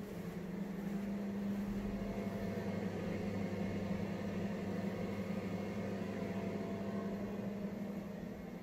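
Steady low hum of a bathroom extractor fan, growing louder about a second in and easing slightly near the end.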